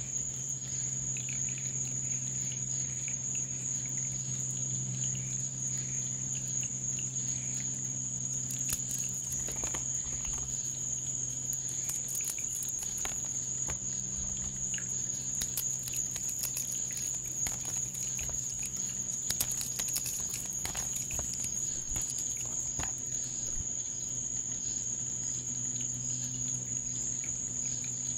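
Crickets trilling in a continuous high, even chorus over a low steady hum, with scattered faint clicks and crackles through the middle.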